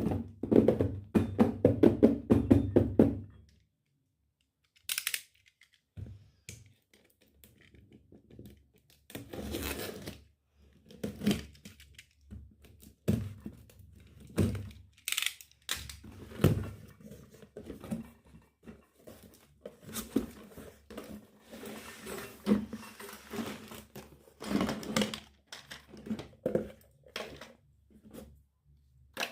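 Unboxing handling: packaging tearing and plastic crinkling, with irregular knocks and clicks of small toy kitchen pieces being handled and set down. The first few seconds hold a louder, dense run of rapid knocks, then a short lull.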